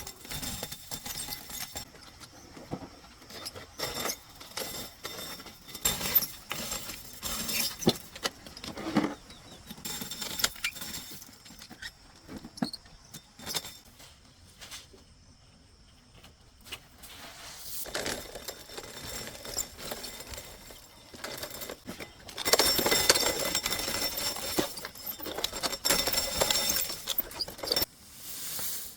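Dry corn being handled by hand: irregular clicking, rattling and rustling of cobs, husks and kernels, with a denser, louder rustling stretch near the end.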